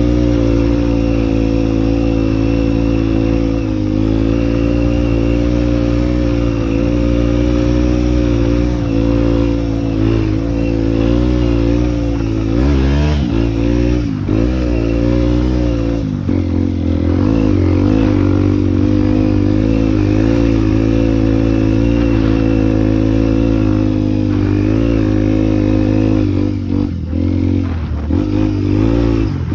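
Single-cylinder Honda dual-sport motorcycle engine running under way at fairly steady revs, its pitch wavering with the throttle. A little under halfway through the revs drop and pick up again as for a gear change, and they dip a few times near the end.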